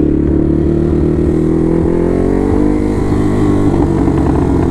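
Ducati motorcycle engine running under way, heard from the rider's seat; its pitch climbs a little about two seconds in, then holds steady.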